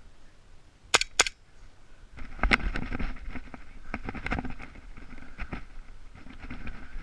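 Two sharp airsoft gun shots about a quarter second apart, then a few seconds of uneven rustling and crackling.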